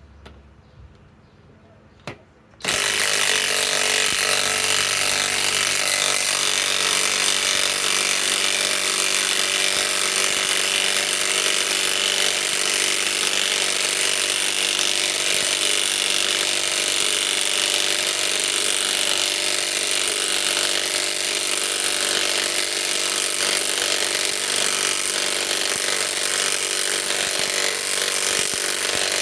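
Flex FX1451 mid-torque cordless impact wrench starting up after a short pause and hammering without a break, driving a long lag bolt into dense wood.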